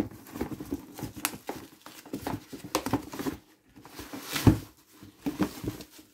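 Cardboard gift box being handled and lifted out of a cardboard shipping carton: scattered taps, scrapes and rustles of card against card, with one louder thump about four and a half seconds in.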